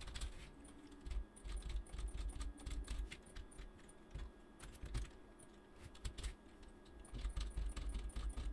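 Typing on a computer keyboard: clusters of quick keystrokes, with a sparser stretch in the middle and a dense run near the end.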